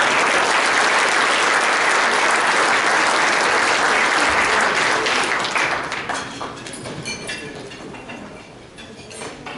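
Audience applauding, which dies away about six seconds in and leaves a few scattered claps.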